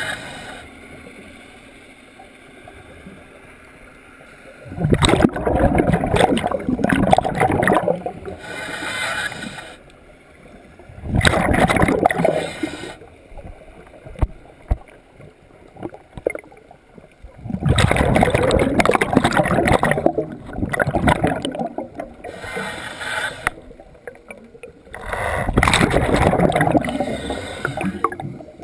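A scuba diver breathing through a regulator. Four long bursts of exhaled bubbles come about six seconds apart, with short, fainter hissing inhalations between them.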